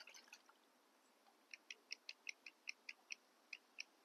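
Faint ratchet wrench clicking while a seized exhaust fastener is worked back and forth. A few small clicks come right at the start, then an even run of about a dozen clicks, roughly five a second, from about a second and a half in.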